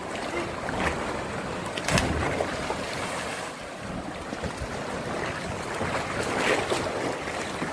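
Sea water lapping and wind buffeting the microphone, with one sharp splash about two seconds in as a cliff diver hits the water.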